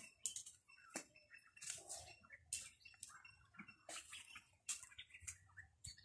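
Faint, irregular crackling clicks of footsteps on dry leaves and soil, a few a second, with faint short bird chirps.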